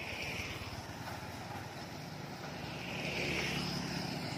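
Small motorbike and scooter engines droning as they pass close, growing louder toward the end as one comes near.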